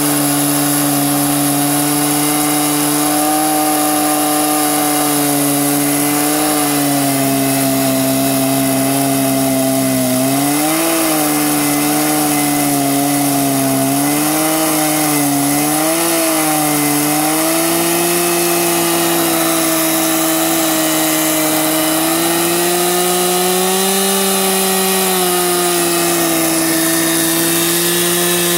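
Two-stroke chainsaw running steadily under load in an Alaskan chainsaw mill, ripping a log lengthwise. Its engine pitch sags and recovers several times around the middle and climbs a little near the end as the cut's load changes.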